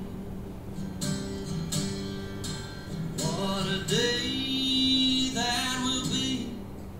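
A song playing, with guitar and a singing voice that comes in about halfway through.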